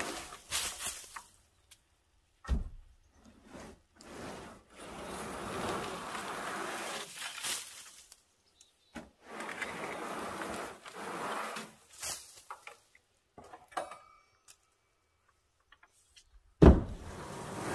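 A rake dragging moss and debris across a bus's metal roof in long scraping strokes with pauses between them. There is a sharp knock about two and a half seconds in and a louder one near the end.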